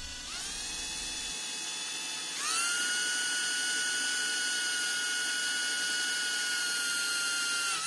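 Milwaukee M18 cordless drill running a small bit through a fiberglass deck: a steady motor whine that spins up just after the start, rises to a higher speed about two and a half seconds in, and winds down at the very end.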